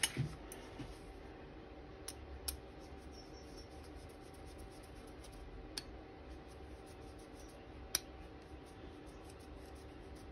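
Faint metal-on-metal sounds of a screwdriver turning the pivot screw back into a pair of scissors, with four sharp little clicks spread through.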